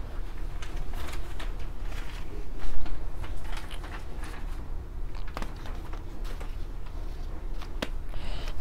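Quiet room tone with a steady low hum, a brief rustle about three seconds in, and a few faint clicks.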